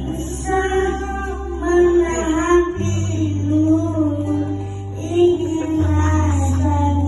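A child singing a winding, ornamented melody over backing music, with held bass notes underneath that change a little under three seconds in and again near six seconds.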